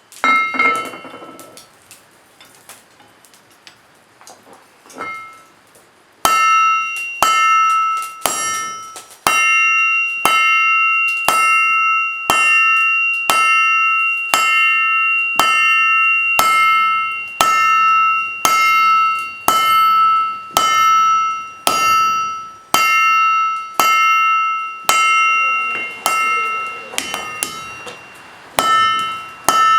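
Hand hammer striking steel on an anvil in a steady rhythm, about three blows every two seconds, each blow leaving a clear ringing tone. It starts about six seconds in, after a few light taps.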